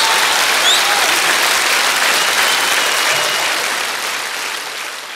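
Studio audience applauding, with a couple of short rising whistles in the first second; the applause fades out over the last second or so.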